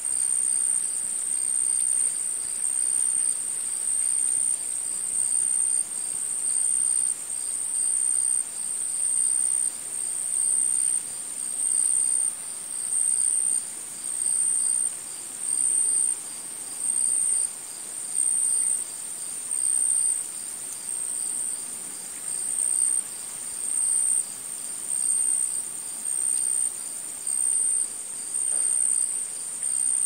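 High-pitched insect trill, cricket-like, chirring in regular pulses that swell about every second and a half.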